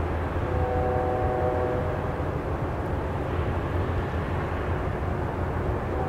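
A ship's horn sounding one short blast at a distance, starting about half a second in and trailing off within a couple of seconds, with a second blast starting right at the end. Under it runs a steady low rumble.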